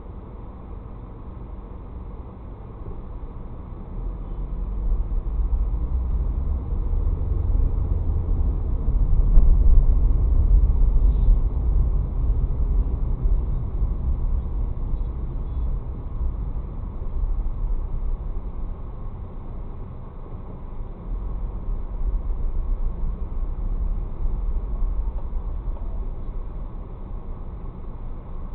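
A car's engine and road noise heard from inside the cabin: a low rumble that swells about four seconds in as the car moves off, eases around the middle and swells again later.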